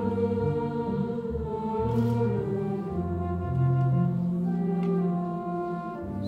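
Concert band and singers performing together: long held sung notes over sustained band chords.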